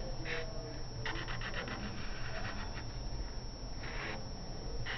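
Felt-tip permanent marker rubbing across paper in a few short scratchy strokes while a line is inked, with one longer stroke about a second in and another near the end.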